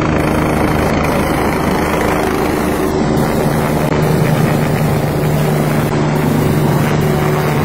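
Eurocopter EC145 helicopter hovering just overhead, its rotor and turbine running loud and steady, with a low hum that grows stronger about halfway through.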